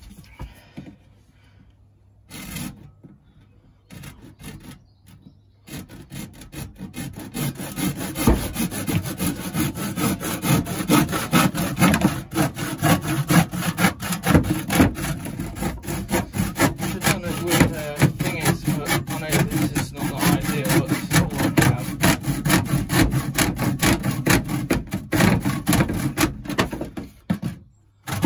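Hand saw cutting, with quick repeated strokes that start about six seconds in and stop just before the end. A few faint handling knocks come before it.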